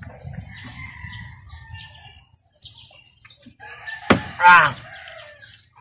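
A sharp knock of a boiled egg cracked against a wooden bench about four seconds in, followed right away by a short, loud rooster crow. Faint bird chirps in the background.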